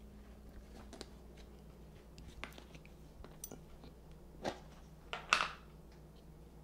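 Plastic food container being opened: soft handling taps, then two sharp snaps about a second apart as the lid is pulled off, the second the louder, over a faint steady hum.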